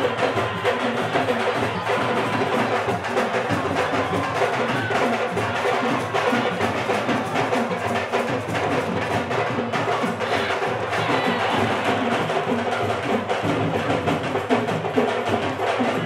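Music driven by fast, steady drum percussion with sharp, wood-block-like strikes, running without a break.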